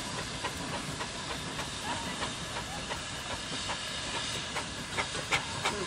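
Steam traction engines working under load while hauling: a steady hiss of steam with irregular sharp exhaust beats from the chimneys, several in quick succession near the end.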